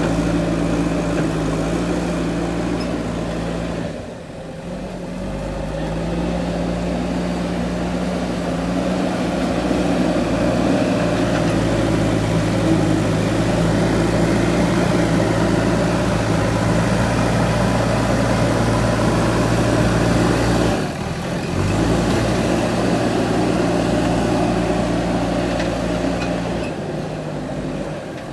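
Diesel engine of a JCB backhoe loader running steadily, its pitch stepping up and down a few times as the machine works, briefly dropping away twice.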